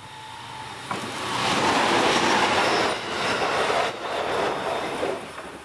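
JR Shikoku suburban electric train passing close by: its running noise swells about a second in, stays loud for about four seconds with two brief dips, then fades.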